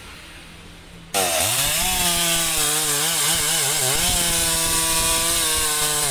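Stihl chainsaw at high revs cutting into the base of a teak trunk, starting abruptly about a second in. Its pitch wavers up and down as the chain bites, then holds steady. Before it, a low steady hum.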